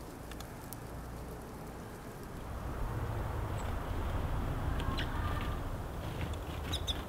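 A few short, high chirps from Eurasian tree sparrows, about five seconds in and again near the end, over a steady low rumble.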